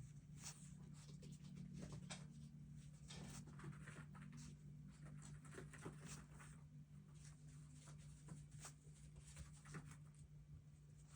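Faint, irregular scratching and light taps of pen and paper on planner pages, over a steady low hum.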